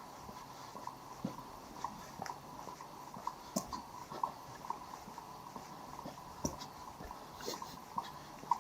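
Walking footsteps, an even pace of about two steps a second, each step a short sharp knock.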